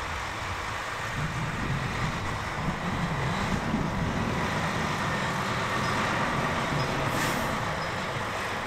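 Heavy-haulage lorry's diesel engine running with a steady low rumble, and a brief high hiss about seven seconds in.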